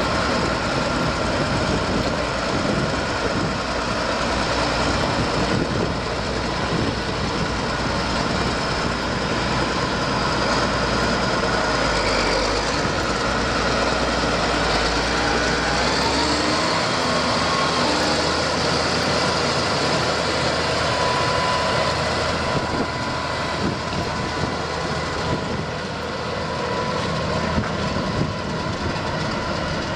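Case IH MX210 Magnum tractor's six-cylinder diesel engine running steadily as the tractor drives around, with the engine note rising briefly about halfway through.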